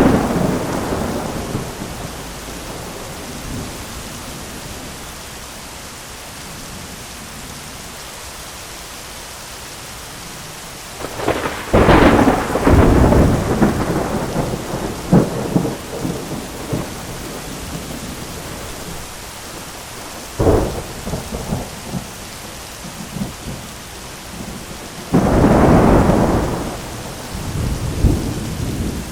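Heavy rain falling steadily on an umbrella, with thunder rolling in several times: a peal right at the start, a long rumble from about eleven to seventeen seconds in, a short sharp crack around twenty seconds in, and another loud peal about twenty-five seconds in.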